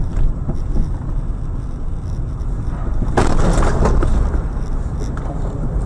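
Car on the road heard through a dashcam: a steady low rumble of engine and road noise, with a sudden louder burst of noise and sharp cracks about three seconds in that lasts under a second.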